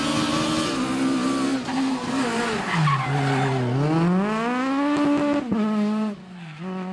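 Rally car engine at high revs: its pitch falls as it slows, climbs hard under acceleration, then drops abruptly with an upshift about five and a half seconds in. It grows quieter near the end as the car moves away.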